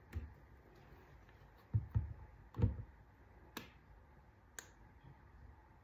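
A few light knocks and clicks of a plastic hand sanitizer bottle and a phone case being handled on a tabletop while sanitizer is squeezed onto the case: several dull taps about two seconds in, then two sharper clicks about a second apart.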